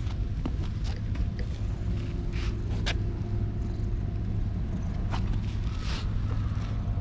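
Calico cat purring as it is stroked, a low steady rumble, with a few brief soft rustles of a hand moving over its fur.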